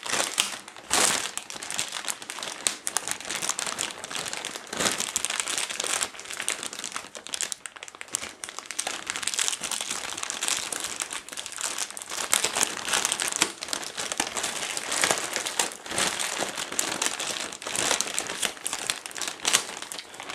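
Clear plastic bag wrapping crinkling and rustling in continuous, irregular crackles as it is handled and pulled off a model boat hull.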